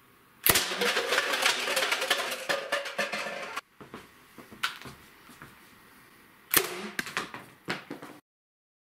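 A homemade air cannon at 30 PSI fires with a sharp bang about half a second in, and plastic cups clatter and tumble for about three seconds after it. A second sharp knock with brief clattering comes near the end.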